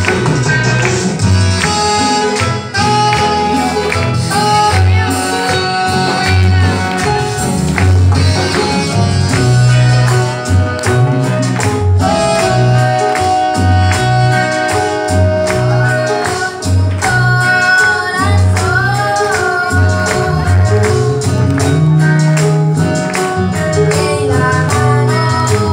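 Live amplified gospel music: women singing a melody into microphones over a band of electric keyboards, bass and percussion with a steady beat.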